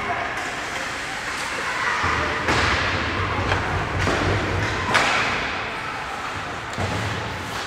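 Ice hockey play: skates scraping the ice, with a few sharp knocks of sticks, puck or boards. The loudest knock comes about five seconds in.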